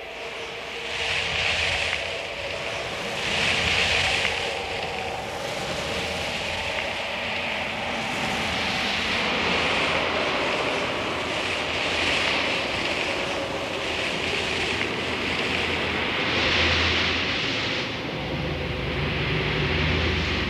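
Sandstorm wind blowing hard in gusts, swelling and easing every couple of seconds, with a low rumble that grows stronger near the end.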